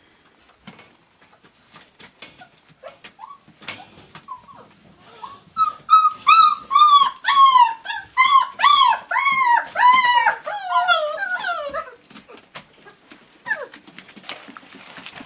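Flat-coated retriever puppy whining: a few faint whimpers, then about five seconds in a quick run of loud, high cries, two or three a second, each rising and falling in pitch, that trail off lower around twelve seconds in, followed by one last falling whimper.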